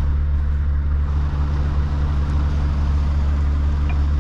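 Scania S770's V8 diesel engine running steadily at low revs, a constant low drone heard from inside the cab.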